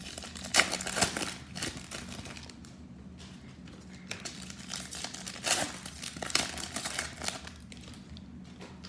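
Foil trading-card pack wrapper crinkling and rustling as it is handled and torn open, with scattered sharp crackles.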